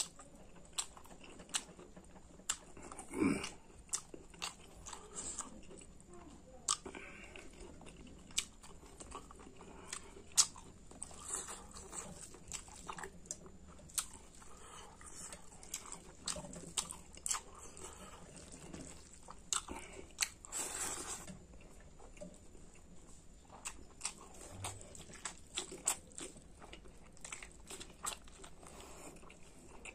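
Close-up mouth sounds of a person eating spicy pork curry with rice: chewing and biting, with many short wet clicks and smacks at irregular intervals, and one longer noisy rush about two-thirds of the way through.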